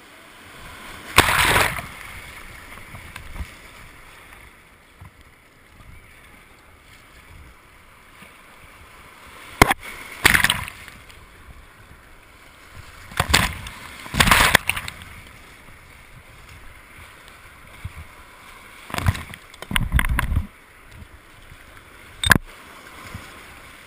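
White water rushing past a kayak, heard from on the boat, with paddle strokes splashing through the water and waves slapping near the boat several times.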